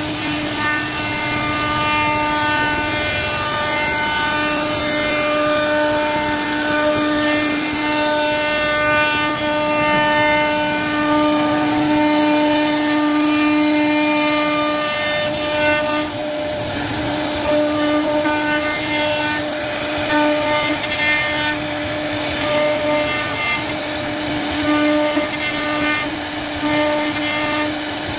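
CNC router spindle running at a steady pitch while its cutter carves a relief pattern into a wooden board. The whine fades in and out every second or two over a hiss of cutting.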